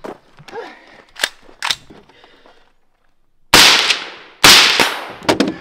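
Heavy breathing and footsteps from a running shooter. Then two very loud shots from a Mark 18 short-barrelled AR-15 carbine, about a second apart, each with a long echoing tail, followed by a few quicker cracks near the end.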